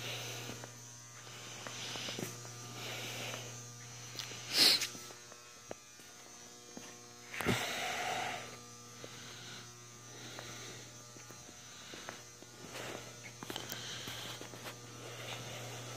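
Steady low electrical hum with a faint buzz, broken by a few brief knocks and rustles. The loudest is a sharp sound about four and a half seconds in, with another knock about seven and a half seconds in.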